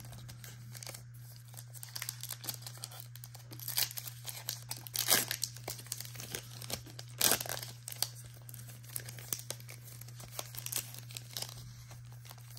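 Crinkling of a foil trading-card pack wrapper being handled and turned over, with two sharper crackles about halfway through, over a low steady hum.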